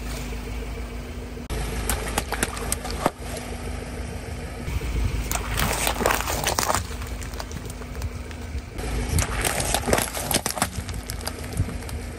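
Car tyre rolling slowly over water beads and water balloons on wet asphalt, with dense crackling and squishing as the gel beads burst and scatter, and a few single sharp snaps. The car's engine runs steadily underneath, and the sound changes abruptly a few times.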